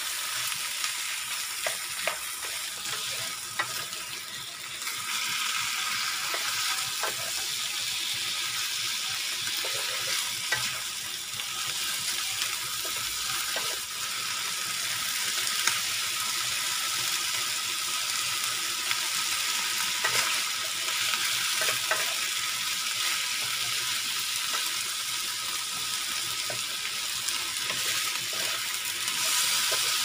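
Chicken pieces and sliced onion sizzling steadily in a frying pan, with short clicks and scrapes of a wooden spatula against the pan as they are stirred.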